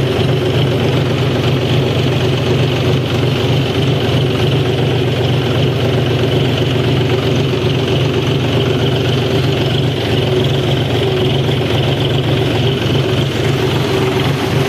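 John Deere tractor's diesel engine running steadily as the tractor drives through floodwater.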